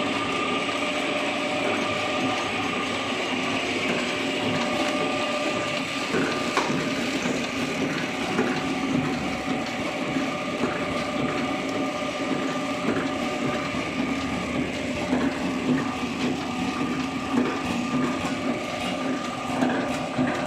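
Horizontal flow-pack packaging machine running: a continuous mechanical hum with steady tones, joined by irregular light clattering from about six seconds in.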